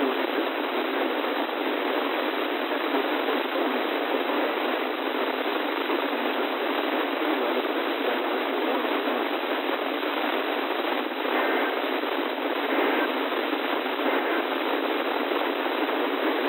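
Steady hiss of FM radio static from a weather-radio channel received on an SDR with no clear signal, sounding thin and narrow. Faint tones show through the static twice, about eleven and thirteen seconds in.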